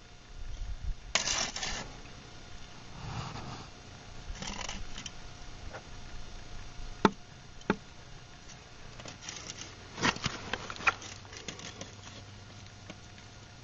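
Scraping and brushing against a concrete block set in wet mortar, with a few sharp knocks on the block. A level is set against the block near the end.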